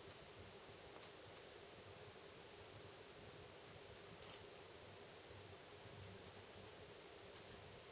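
Japanese wind bell (fūrin) chiming faintly: about seven light, irregularly spaced strikes, each leaving a high, clear ringing tone that lingers into the next.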